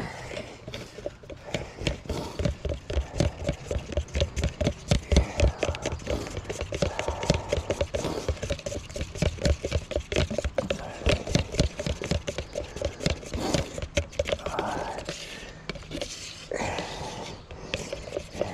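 Two-part epoxy resin and hardener being stirred in a mixing cup: a rhythmic scraping and knocking at about four strokes a second, easing off near the end.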